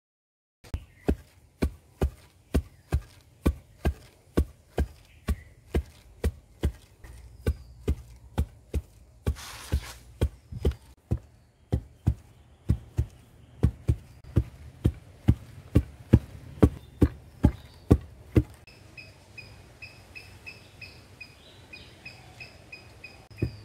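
Two long wooden pestles pounding rice by turns in a stone mortar, giving a steady thud about twice a second. For a few seconds near the end the thuds turn faint while a high, rapidly repeated chirping is heard, then the thuds come back loud.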